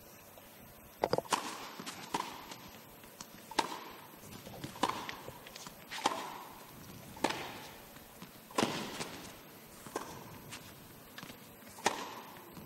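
Tennis rally: rackets striking the ball back and forth, about one crisp hit every second and a quarter, with fainter ball bounces between. Each hit rings briefly in the echo of an indoor arena.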